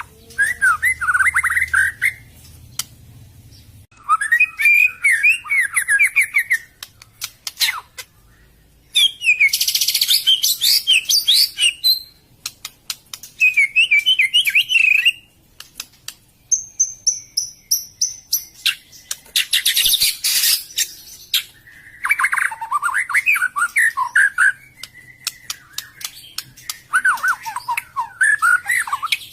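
White-rumped shama (murai batu) singing in repeated bursts of rapid, varied chattering phrases with some high whistled notes, separated by short pauses of a second or two.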